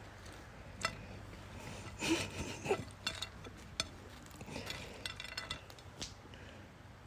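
Scattered light clinks and taps, like dishes or cutlery being handled, with a busier patch about two seconds in and another around five seconds.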